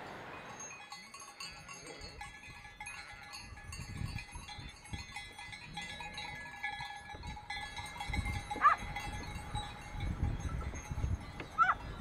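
Many livestock bells ringing together, a steady tinkling of overlapping high tones. Two short high calls stand out near the end, with low rumbles underneath.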